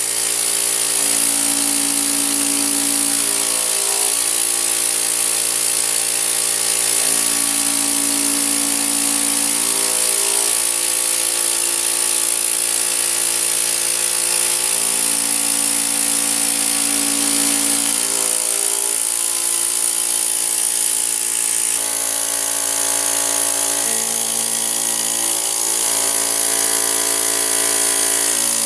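Wet-dry vacuum or upholstery extractor running steadily through its hose and upholstery nozzle, a loud motor hum with a high whine. The hum changes pitch every few seconds as the nozzle is stroked over the sofa's fabric cushions.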